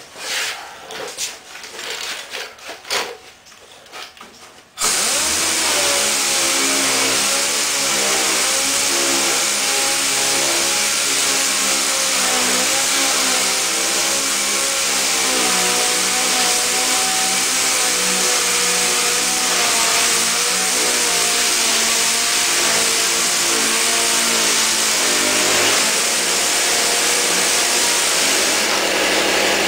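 Pneumatic dual-action (DA) sander switching on about five seconds in and running steadily against body filler on the steel cab roof. Its air-motor whine wavers in pitch as it is pressed and moved. Before it starts there are a few knocks of the tool and hose being handled.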